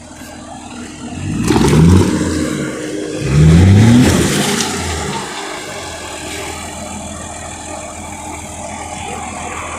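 Off-road 4x4's engine revved hard twice, the pitch rising each time, then settling to a steadier, quieter run.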